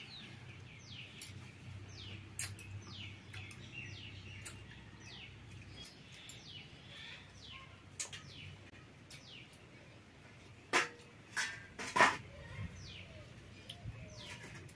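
Small birds chirping over and over, each call a quick falling chirp. A few sharp knocks, louder than the birds, come about two-thirds of the way through.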